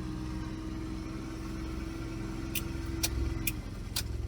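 Off-road all-terrain vehicle engine idling steadily, with a higher whine over it that stops about three and a half seconds in. Four sharp clicks come in the second half, about half a second apart.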